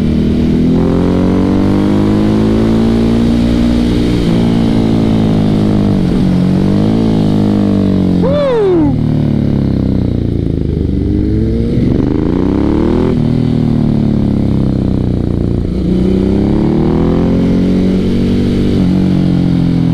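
Ducati Hypermotard 1100's L-twin engine under way, its revs climbing and dropping again and again through the gears, with one quick sharp rev blip about eight seconds in.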